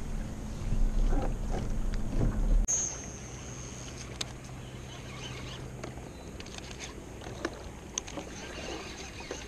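A small boat's motor running with a steady low hum for the first few seconds, cut off sharply. After that, a quieter stretch with a faint high whine that slowly fades and a few light clicks, which fit a baitcasting reel being handled.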